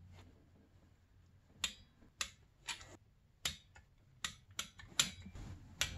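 About nine short, sharp metallic clicks at uneven spacing, from a long-handled wrench being worked on bolts on the snowmobile's engine.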